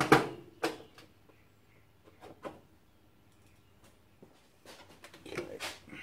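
Handling noise on a workshop bench while a screwdriver is fetched: a loud clatter right at the start, then scattered clicks and knocks, with a cluster of rattling knocks about five seconds in as tools and the heater's plastic cover are handled.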